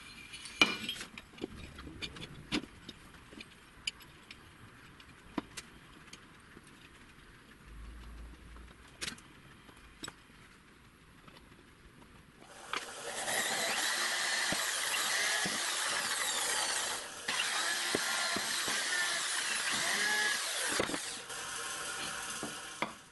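Scattered light clicks and taps of tools on metal as an aluminium heatsink is handled and marked out. About halfway through, an electric drill starts boring into the aluminium, running for about eight seconds with a short break, then easing off and stopping near the end.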